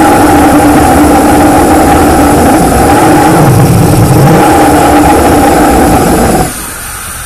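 Small demonstration ramjet engine running with a loud, steady drone that carries a strong hum, cutting off suddenly about six and a half seconds in.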